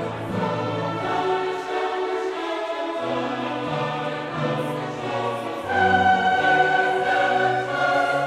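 Background choral music with long held notes, getting louder about six seconds in.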